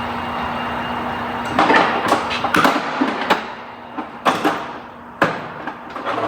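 Irregular sharp clicks and clunks of hands working loose the Prius's orange high-voltage connectors, about seven of them spread over the last four seconds. A steady hum underneath cuts off about a second and a half in.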